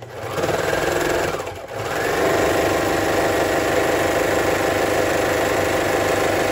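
Baby Lock Imagine serger running at speed, stitching over a sleeve seam a second time. It stops for a moment about a second and a half in, then runs steadily again.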